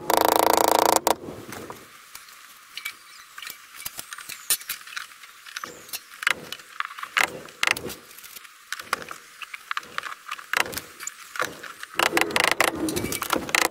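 A hammer tapping insulated cable staples into a wooden stud. A quick run of loud blows comes in the first second and another near the end, with scattered lighter knocks and clinks between them.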